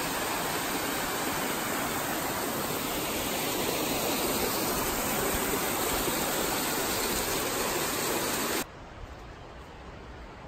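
A large waterfall rushing: a steady wash of falling water that cuts off suddenly near the end, giving way to much quieter background.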